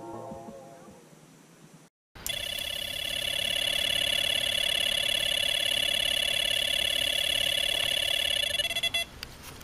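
Electronic carp bite alarm sounding a shrill, continuous tone with a fast flutter for about seven seconds before it cuts off: the alarm signalling a run, a fish taking line. Soft music fades out just before it.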